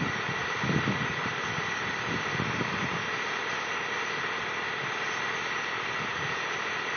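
A backhoe's diesel engine running steadily, with a thin steady whine above it.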